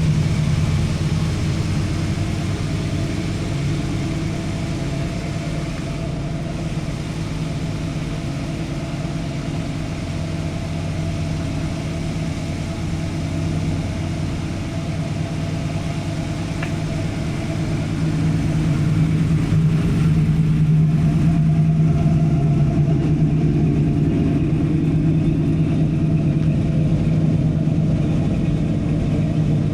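Car engine idling steadily, a low even hum that grows louder about two-thirds of the way through.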